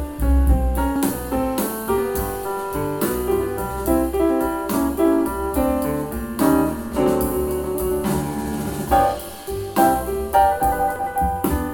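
Jazz with piano over drums and bass, played back through the Arylic A30+ streaming amplifier in a sound test.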